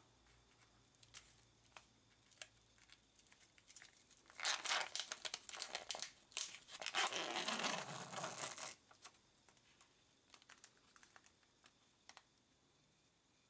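Clear plastic candy wrapper crinkling loudly for about four seconds, in the middle, as it is opened and the packaging is pulled out, with light plastic clicks from handling the blister tray before and after.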